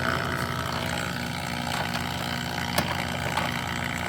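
HVAC vacuum pump running steadily, pulling a deep vacuum on the refrigerant lines, with a couple of light clicks about three seconds in.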